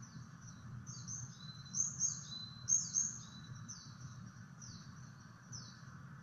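A songbird singing a series of quick, high, down-slurred notes, some paired with a short lower note, loudest in the middle, over a steady low hum.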